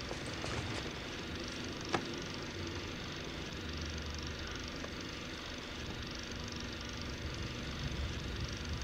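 Quiet room ambience: a steady low hiss and hum with faint rustling, and a single soft click about two seconds in.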